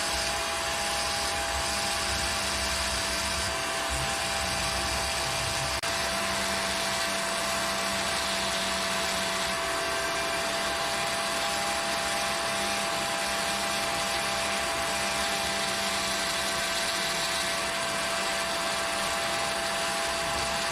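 Power tool running continuously while a fossil shell is being prepared: a steady whine over a constant hiss, with a lower hum that drops in and out every few seconds.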